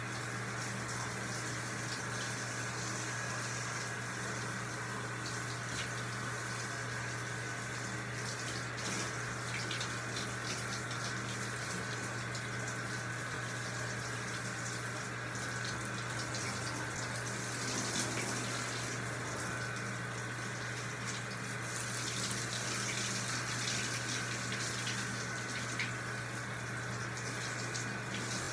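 Water spraying steadily from a handheld shower head onto a dog in a bathtub, with a constant low hum underneath.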